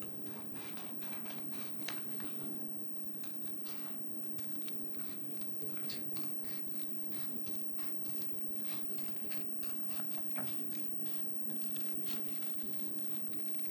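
Scissors snipping, a run of short, irregular cuts, with a faint steady hum underneath.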